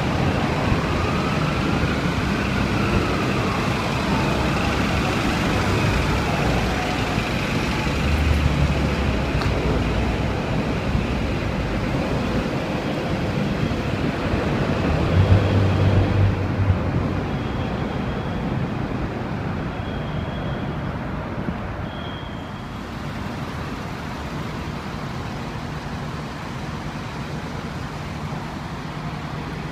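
Fire department apparatus and an ambulance on the move in street traffic: engine and road noise, with a siren wail that rises and then falls over the first several seconds. Heavy engine noise is loudest about halfway through, followed by four short high beeps about two seconds apart.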